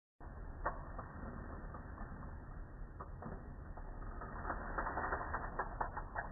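Clicking and ratcheting of the plastic mechanism in a Lego Technic pull-back car. Sparse clicks come first, then a quick run of clicks from about four and a half seconds in.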